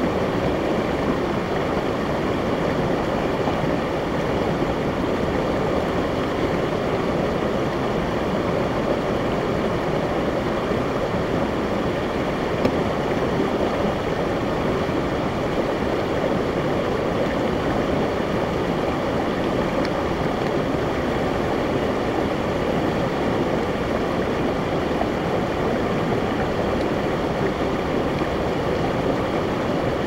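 Rocky mountain stream running over and between boulders, a steady rush of water with small cascades.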